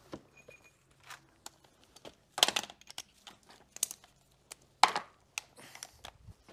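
Hand tools being picked through and handled: scattered clicks and clatter, with two louder scraping rustles about two and a half and five seconds in.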